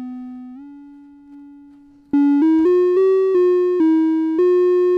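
Octave Kitten II analogue monophonic synthesizer, its single oscillator giving a bright buzzy tone: a held note fades away while its pitch steps up slightly about half a second in. About two seconds in, a quick run of about seven notes is played on its keyboard, climbing and falling back, and the last note is held steadily.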